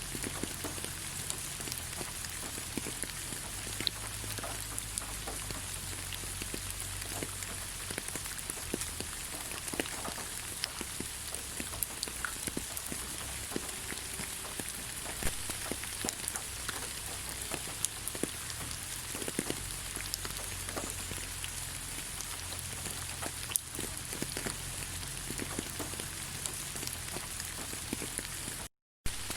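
Steady rain falling on leaves: a continuous hiss with many separate drops pattering on the foliage. The sound cuts out completely for a split second near the end.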